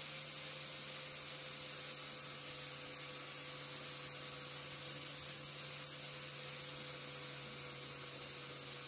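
Steady low hum with a faint even hiss and no change in level.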